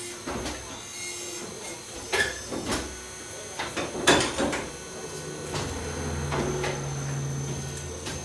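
Workshop sounds from heavy-tyre repair work: a handful of sharp knocks and clanks, then a steady low machine hum that starts about five seconds in and keeps running.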